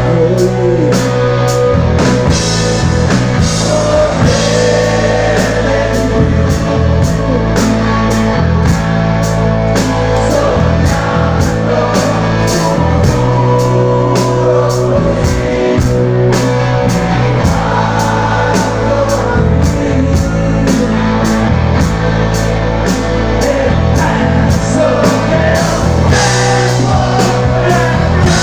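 A rock band playing live: electric guitar and a drum kit keeping a steady beat of about two hits a second, with a man singing over it in stretches.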